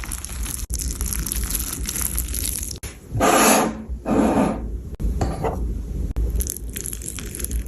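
Kitchen handling sounds: scraping and rubbing with some clatter of pans and utensils, with a few louder bursts around the middle.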